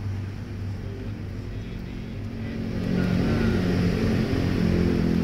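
A motor vehicle engine running with a steady hum, growing louder about three seconds in.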